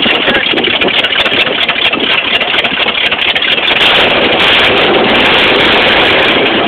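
Backhoe engine running loud and steady, with a dense clatter.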